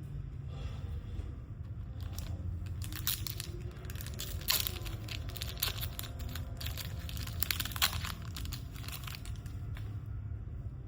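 Trading card pack wrappers being crinkled and torn open: a run of crackles and rips lasting several seconds, loudest about halfway through and again a little later.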